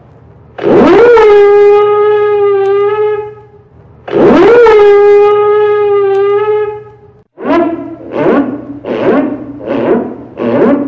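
Ship's alarm siren sounding the call to battle stations under attack: two long blasts, each swooping up and then held steady, followed by a rapid series of short blasts about one every 0.7 seconds.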